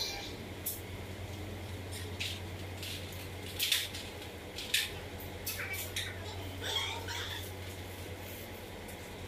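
Short, sharp plastic clicks and creaks from a BMW GT front bumper being handled and fitted by hand, about seven scattered through, the loudest a little past a third of the way in, over a steady low hum.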